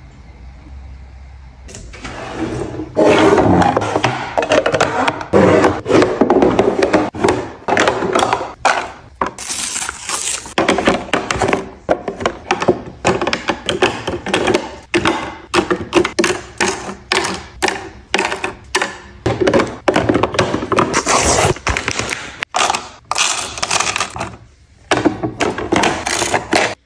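Plastic toiletries such as disposable razors and hairbrushes clattering, tapping and scraping as they are dropped and arranged in clear plastic drawer organizer bins, a rapid string of close-up knocks and rattles.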